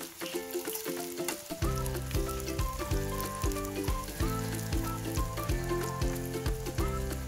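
Sliced brinjal frying in hot oil in a small pan, sizzling with fine crackles. Background music with a repeating melody plays over it, a bass line coming in about one and a half seconds in.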